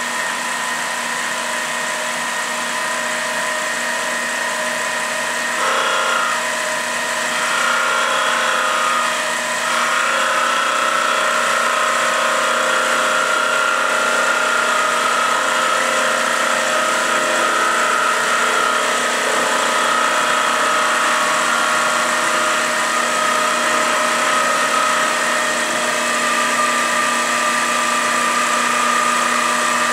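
Harbor Freight 7x12 mini metal lathe running steadily with a whine, spinning a wooden cup blank. From about six seconds in, a wavering higher-pitched tone is added as the boring bar cuts into the bore of the wood.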